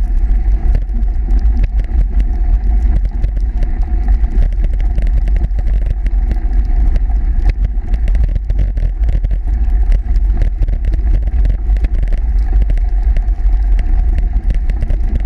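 Steady low rumble of wind and road noise on a bicycle-mounted action camera while riding over a snow-covered trail, with many small irregular rattles and knocks from the bike and camera mount.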